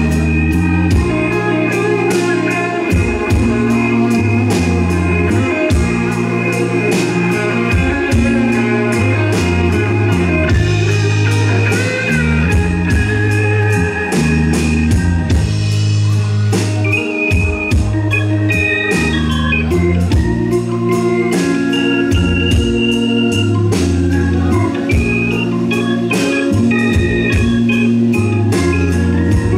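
Live band playing an instrumental break in a slow country-soul ballad, with no vocals: organ-voiced keyboard chords held over electric bass, electric guitar and a drum kit keeping a steady beat.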